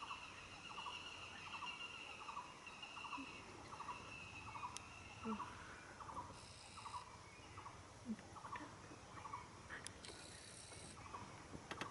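Faint forest ambience: a distant animal repeats a short, buzzy note about twice a second, with a steady high note for the first few seconds and a brief burst of clicking at the very end.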